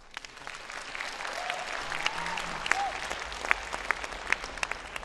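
Theatre audience applauding, starting up and swelling within the first second, with a couple of brief voices calling out about two seconds in.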